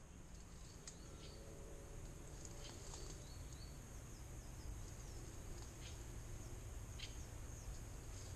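Quiet riverside woodland ambience: a steady high insect drone, with a few short bird chirps scattered through it.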